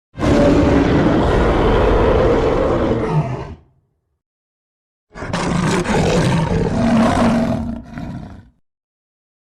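Two roars of a big-cat-like creature sound effect, each about three seconds long, with dead silence between them; the second wavers and dips near its end.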